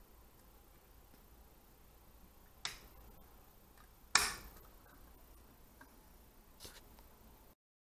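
Sharp plastic clicks from a hand working at the chassis of an RC model truck: two clear clicks a second and a half apart, the second the loudest, then a fainter one near the end, over quiet room tone.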